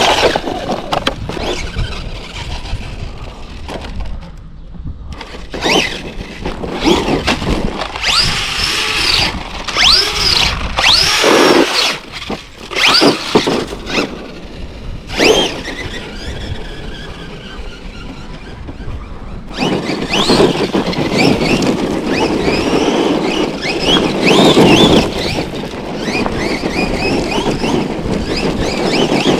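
Losi LMT RC monster truck's electric motor and drivetrain whining as it is throttled up and down over and over, each rev rising and falling in pitch, broken by short bursts of rougher noise from the truck running over the ground.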